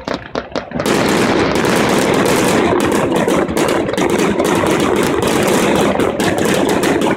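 Fireworks: a few separate bangs in the first second, then a dense, continuous rapid crackle of many shells bursting at once, like machine-gun fire.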